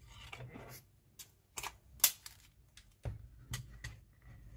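Scattered sharp clicks and light knocks as a handheld digital multimeter is handled on the bench and its rotary selector dial is turned, with a faint thin high tone near the end.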